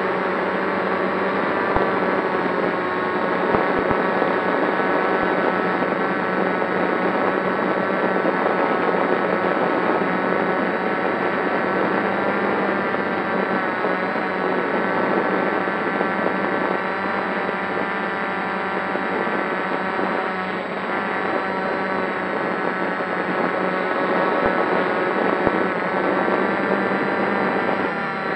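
Multirotor drone's electric motors and propellers running steadily in a hover while carrying a maximum payload, heard from the camera mounted on the drone: a steady whine of several tones that waver slightly in pitch.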